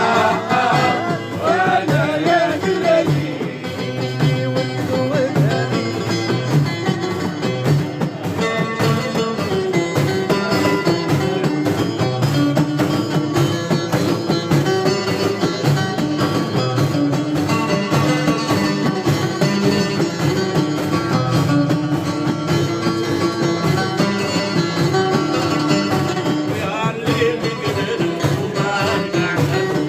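Live music played on plucked string instruments with a steady, busy accompaniment; a singing voice comes in during the first few seconds and again near the end, with an instrumental passage between.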